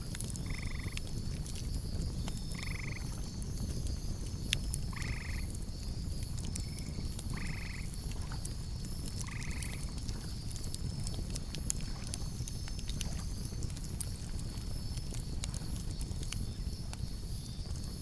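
Wood campfire crackling with scattered sharp pops over a steady low rush of flames. In the first half an animal gives a short call about every two seconds, six times, and insects chirp in a high, rapid pulse throughout.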